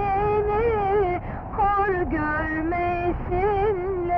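A woman's voice singing a slow song, holding long notes and bending them in wavering ornamented turns, with short breaths between phrases.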